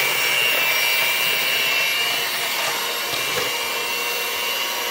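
Electric hand mixer running steadily with a high motor whine, its beaters whisking a thin, watery pumpkin pie filling in a metal mixing bowl.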